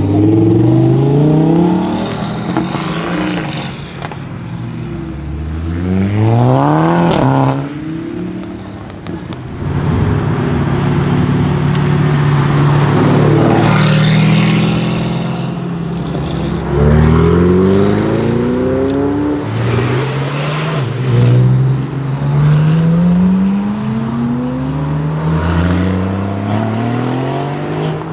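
Mercedes-AMG GT R Pro's twin-turbo V8 with a Fi exhaust, revving and accelerating hard through several upshifts. The pitch climbs in repeated sweeps and drops back at each gear change, with one steep, high rev about seven seconds in.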